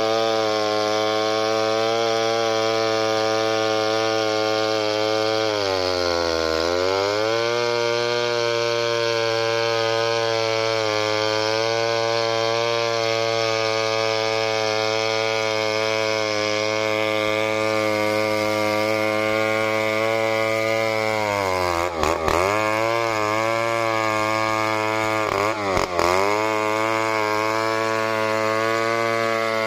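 Stihl chainsaw running at high revs while ripping a coconut log lengthwise. Its pitch dips briefly about six seconds in, and twice more sharply later on.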